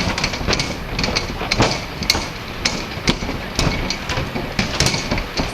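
Irregular clatter of sharp knocks and clicks over a steady rumbling noise.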